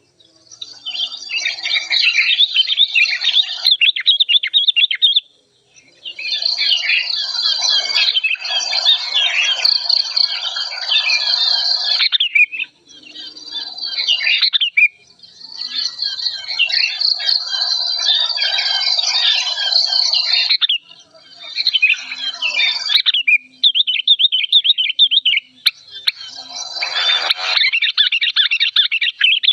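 Sooty-headed bulbul giving loud, agitated chattering calls, the excited, aggressive calling of an old bird used to lure others. The calls come in several long bouts with short breaks between them.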